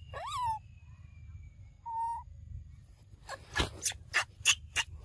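Animal calls: a short whistle-like call that rises then falls, a brief steady note about two seconds in, then a quick run of about six sharp calls near the end.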